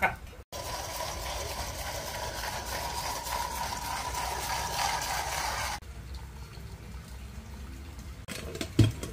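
Hot water pouring in a steady stream from a gooseneck kettle into an AeroPress. The pour cuts off abruptly about six seconds in, followed by quieter handling sounds.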